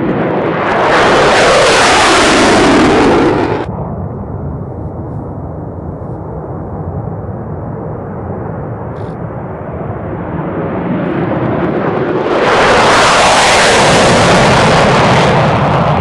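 Jet engine roar of fighter jets taking off, with the F-16 first. A loud pass cuts off abruptly about three and a half seconds in. A lower steady jet rumble follows, then a second loud roar builds from about ten seconds and peaks near the end.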